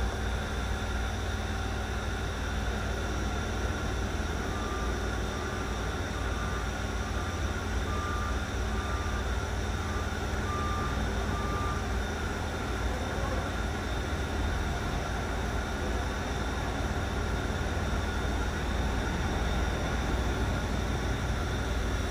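Steady hum of powered machine-shop machinery: a low rumble with several steady tones above it. From about four to twelve seconds in, a short high beep repeats a little over once a second.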